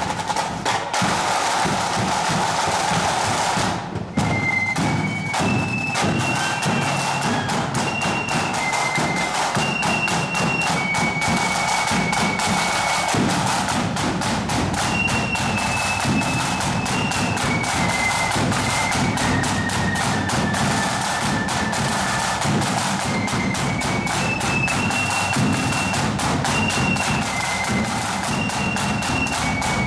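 Marching accordion band: snare drums beating a steady rhythm with accordions playing a march tune. The drumming breaks briefly about four seconds in, and the melody starts just after.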